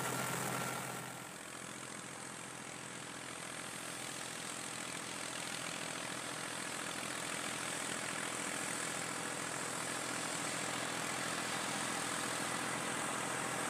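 Tractor engine and rotary mower running, heard close from the cab for about a second, then from out in the field as the tractor comes toward the microphone, slowly getting louder.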